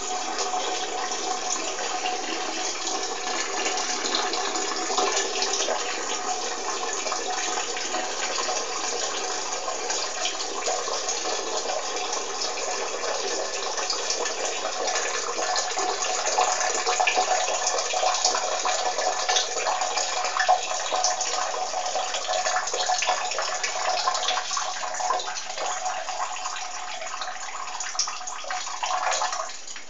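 A person urinating, a steady stream splashing into water, which stops abruptly near the end.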